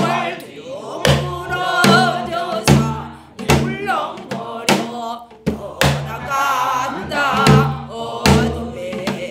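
A woman singing pansori in a strained, wavering voice, with the low thud of a buk barrel drum struck about once a second to keep the rhythm.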